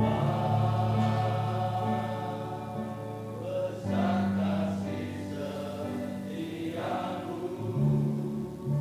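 Men's choir singing a slow gospel song over sustained low accompaniment chords.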